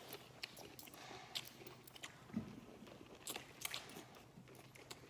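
A person chewing and biting into a lemon: faint, irregular wet mouth smacks and clicks.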